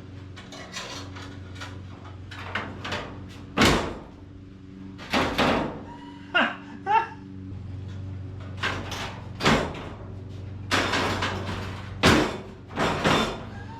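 The steel hood of a 1951 Ford being opened and shut repeatedly to test a homemade hood latch: a series of metal clanks and bangs as the hood drops and the latch catches and releases. A steady low hum runs underneath.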